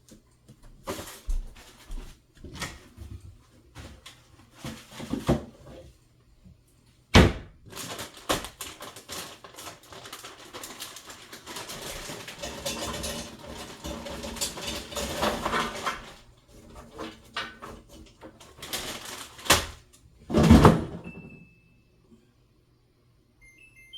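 Kitchen handling sounds: things being moved and set down, with clicks and knocks, a busy stretch of clatter in the middle and two loud thumps. A few short electronic appliance beeps come near the end.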